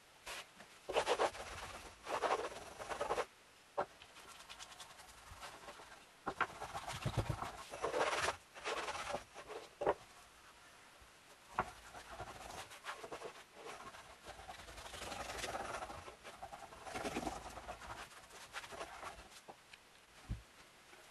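A small wooden block rubbing back and forth across a sheet of wood veneer, with the thin sheet rustling as it is handled. The scraping comes in several bursts with a few light knocks, and there is a soft thump near the end.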